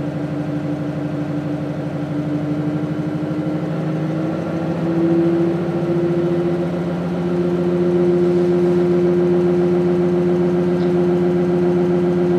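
Pulsed DC stepper motor running on a test rig: a steady electrical hum with a fast pulsing buzz. Its pitch and loudness step up about four to five seconds in and again about seven seconds in, as more input power is fed in and the motor speeds up.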